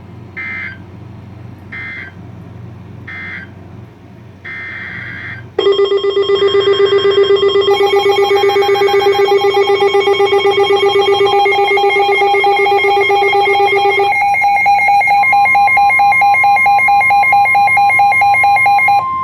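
Emergency Alert System coded data bursts: four short digital bursts, the last one longer, then a loud pulsing alert tone made of several pitches at once, with a steady single tone coming in near the end. These are the signalling tones that separate one broadcast warning message from the next.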